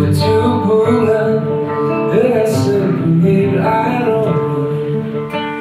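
A man singing to his own acoustic guitar, strumming chords under long held vocal notes.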